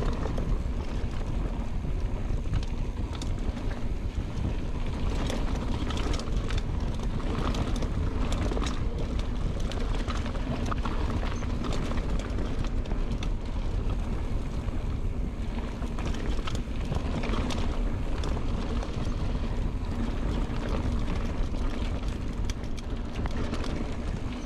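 Mountain bike rolling fast down a dirt flow trail: steady tyre and rushing-air noise with wind buffeting the microphone, and frequent short clicks and rattles from the bike.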